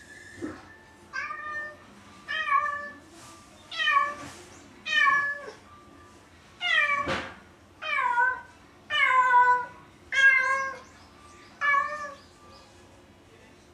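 A cat meowing over and over, about ten loud meows roughly a second apart, each one falling in pitch.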